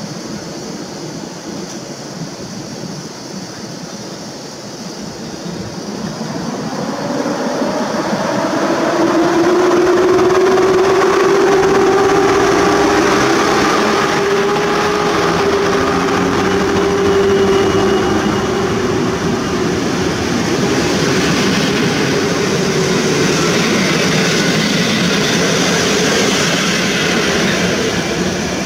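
PKP EP07 electric locomotive pulling an Intercity passenger train away from a standstill. It starts as a low steady hum, then grows loud about six to ten seconds in as the locomotive passes with a whine from its motors. The carriages then roll past, gathering speed.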